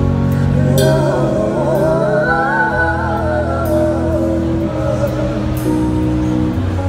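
Live band music: a woman sings a wavering melody over sustained keyboard and bass notes, with light cymbal taps. The singing comes in about a second in and fades near the five-second mark, leaving the held chords.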